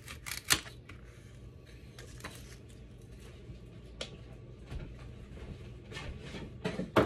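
Kitchen knife sawing through a foam pool noodle on a granite countertop: a few quick strokes and a sharp knock at the start, then scattered light taps and handling of the foam pieces, with louder knocks near the end.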